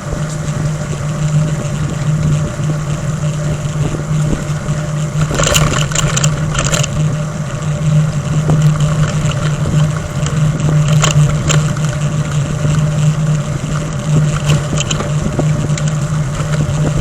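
A steady motor hum with a few short clicks and rattles about five to seven seconds in and again near eleven seconds.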